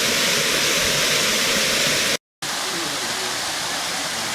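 Waterfall rushing with a steady, even hiss. The sound cuts out completely for a moment about two seconds in, at an edit, and resumes slightly quieter.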